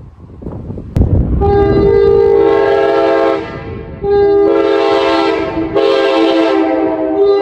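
1980s tagless Nathan K5LA five-chime air horn sounding its chord in three blasts. A long blast starts just after a sharp click about a second in, then two shorter blasts follow after brief gaps, the last still sounding at the end.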